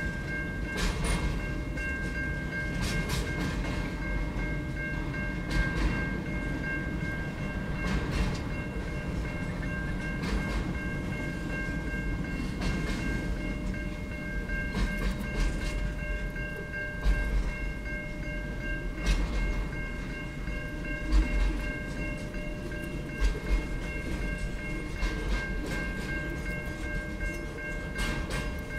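Container wagons of a long intermodal freight train rolling past: a steady low rumble of wheels on rail, with irregular clacks as wheels cross joints and a steady high whine from the passing wagons.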